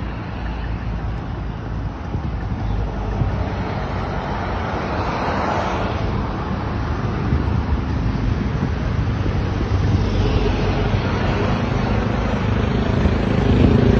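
Storm wind blowing hard on the microphone, with a steady low engine rumble underneath; the noise grows louder near the end.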